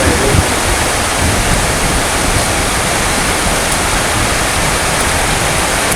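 Heavy rain falling steadily, a dense even hiss with no thunder.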